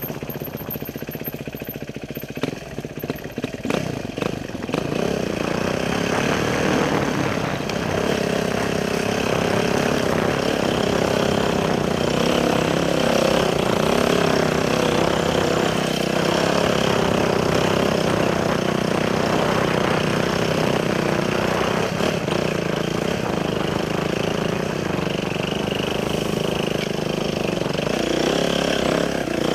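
Motorcycle engine running under way, with rumbling engine tones and road and wind noise. It grows louder and steadier about five seconds in as the bike gets up to speed.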